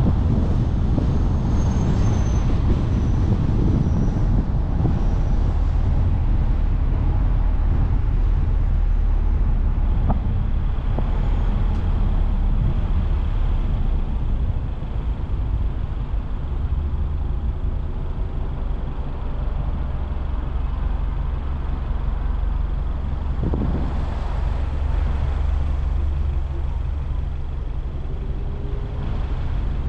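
Road noise from a car driving on a city avenue: a steady low rumble of tyres and engine. It eases off somewhat in the second half as the car slows into traffic.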